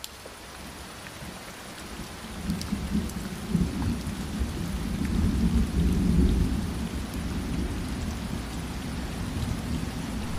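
Steady rain with a low rumble of thunder that swells about halfway through and then eases off.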